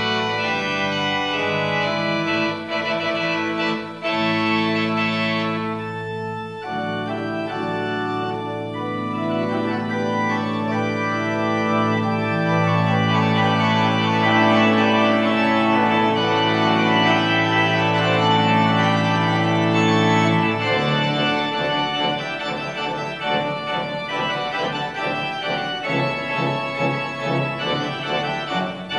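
Organ music playing slow, held chords. About two-thirds of the way through, the low sustained notes drop out and a lighter, more broken passage follows.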